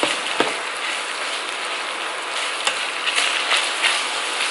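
Ground pork, sliced hotdogs and mushrooms sizzling in a nonstick frying pan as they are stirred with a spatula, a steady hiss with a few sharp clicks of the spatula against the pan.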